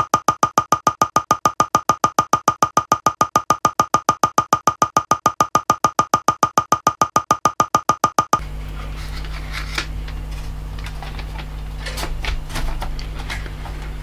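A fast, even run of pitched clicks, about six a second, that stops suddenly about eight seconds in. After it comes a low steady electrical hum with a few light clicks and rubs from plastic keyboard parts being handled.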